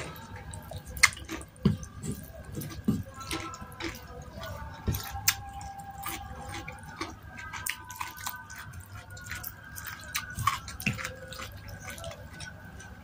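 Close-miked wet eating sounds: chewing soft, sticky seblak, with many sharp mouth clicks and smacks scattered through, and a wooden spoon working the food in a stone mortar.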